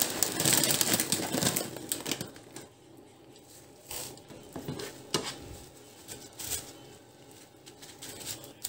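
Dry pancit canton noodles crackling and rustling as they are pressed down into the sauce in a nonstick pan, dense for the first two seconds, then scattered light clicks and taps of the noodles and a utensil against the pan.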